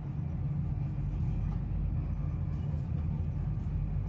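Airport Rail Link electric train running at steady speed, a continuous low rumble heard from inside the carriage.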